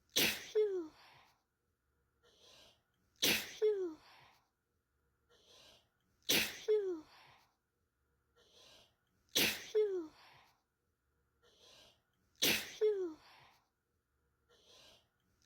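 A person sneezing five times, one sneeze about every three seconds. Each is a quick in-breath, then a sudden explosive sneeze ending in a voiced 'achoo' that falls in pitch. The sneezes sound identical because one short sneeze clip is looped.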